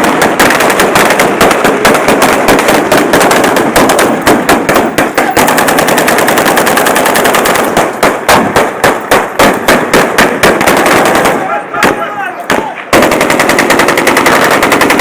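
Automatic gunfire: long, rapid, near-continuous bursts of shots, thinning briefly near the end before picking up again.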